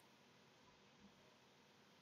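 Near silence: faint hiss of the stream's audio between goodbyes.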